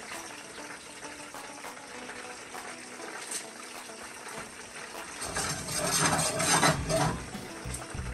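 Olive oil being poured into a frying pan on a gas stove, a quiet liquid trickle. About five seconds in comes louder knocking and scraping as the pan is lifted and moved over the burner grate.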